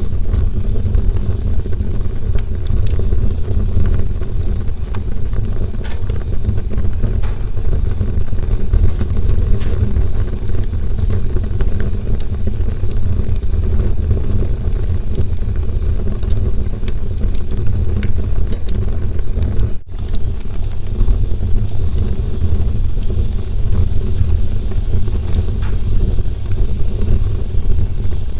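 Campfire burning: a steady low rumble with scattered sharp crackles and pops, broken by a momentary gap about two-thirds of the way through.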